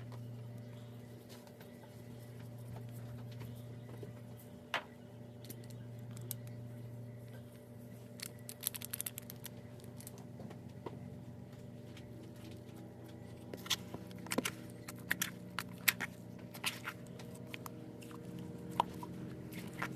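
Slime being squeezed, poked and stretched by hand, giving scattered sticky clicks and pops, sparse at first and much more frequent in the second half, over a steady low hum.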